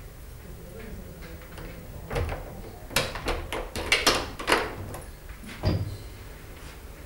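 A flat's front door being unlocked with a key and opened: a run of sharp metallic clicks and rattles from the key and lock from about two seconds in, then one heavier knock near the end as the door comes open.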